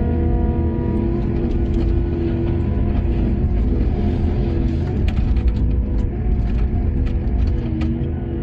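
Heavy mining machinery engine running with a steady low rumble, under background music with long held notes that change every few seconds.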